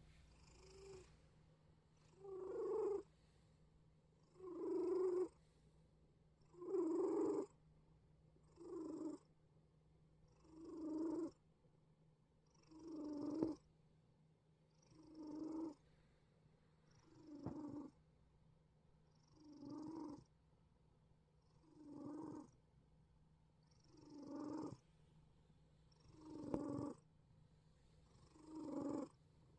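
A sleeping cat wheezing and snoring with each breath: a raspy sound about once every two seconds, each lasting about a second, with quiet between.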